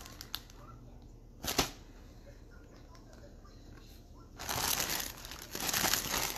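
Clear plastic bag around a jersey crinkling as it is handled, with one sharp tap about a second and a half in and loud, sustained crinkling in the last two seconds.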